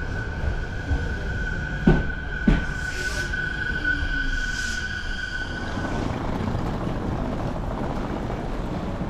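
Aichi Loop Railway electric train running, heard from aboard: a steady rumble with a high whine that stops about six seconds in, and two sharp knocks close together around two seconds in.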